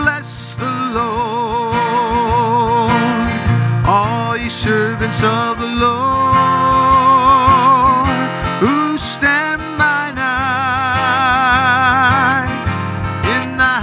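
A man singing a slow worship song, holding long notes with vibrato, while strumming an acoustic guitar.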